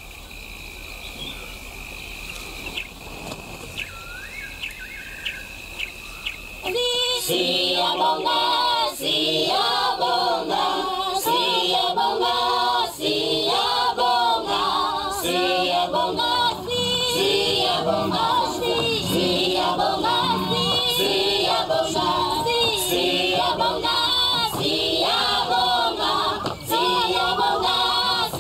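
Night bush ambience with a steady high trill and a few short chirps, then about seven seconds in a choir starts singing as background music and carries on.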